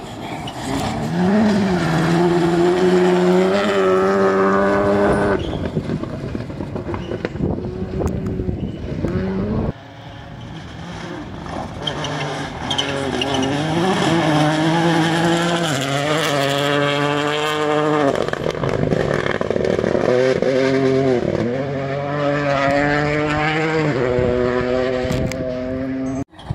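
Rally car engines revving hard through the gears, the pitch climbing and dropping back at each gear change. The sound breaks off sharply about ten seconds in, then picks up again.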